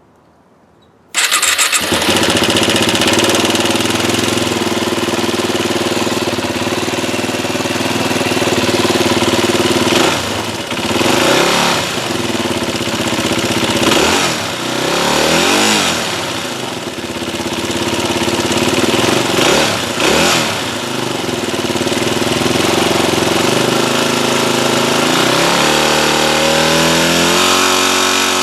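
Yamaha WR250R's 250 cc single-cylinder four-stroke engine starting about a second in, then idling and blipped up and down a few times. It runs with a rattle that developed after the bike was swamped and water was drawn into the engine.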